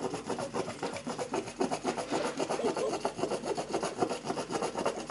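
Plastic mayonnaise squeeze bottle squeezed upside down over a plate, giving a steady rapid crackle as mayonnaise and air are forced out of the nozzle.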